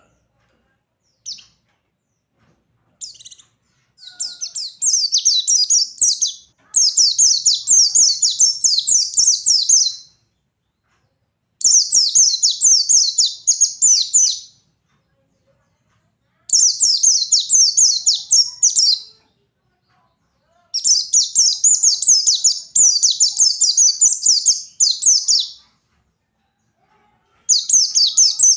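White-eye (pleci) singing its fast, high-pitched wild-style 'ngalas' song. A few short chirps open it, then come rapid twittering phrases two to five seconds long, with brief pauses between them.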